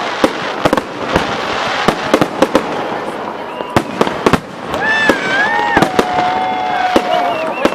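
Fireworks display: a rapid series of sharp bangs from bursting shells over continuous crackling, with a few drawn-out gliding tones in the second half.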